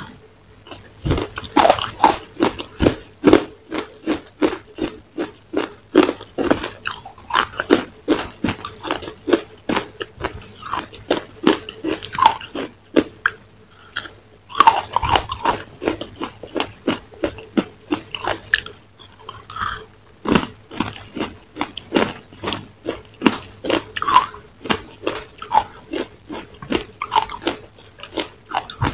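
Close-miked crunchy biting and chewing of a crisp, crumb-coated dessert: a fast, irregular run of sharp crunches with brief pauses, over a faint steady hum.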